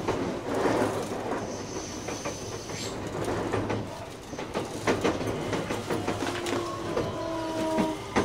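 Interior running sound of a JR West 321 series electric train with a Hitachi IGBT VVVF inverter: steady rumble with the clickety-clack of wheels over rail joints. Near the end, short steady inverter tones step down in pitch, typical of the motors braking as the train slows for a station.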